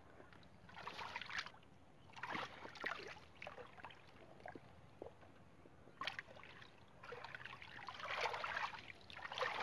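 Hands digging and scooping in wet mud and shallow muddy water: soft, irregular squelches and sloshes that come and go.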